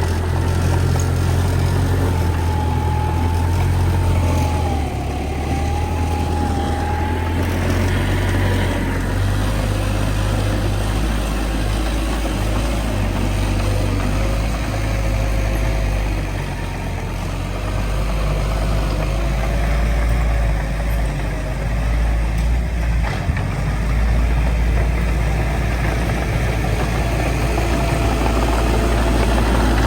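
Heavy diesel engine of earthmoving equipment running steadily, with a faint wavering whine above the engine note over the first half and again near the end.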